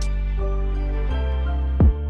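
Background electronic music: sustained synth bass and chords with a beat of drum-machine hits, a kick drum landing near the end.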